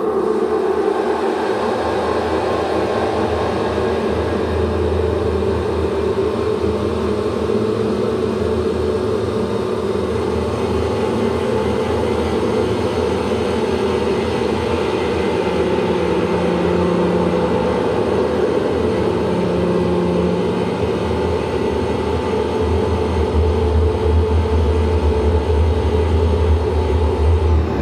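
Dense, steady drone of held resonant tones over a rumbling noise. A lower tone swells in and out twice around the middle, and the low rumble grows stronger near the end.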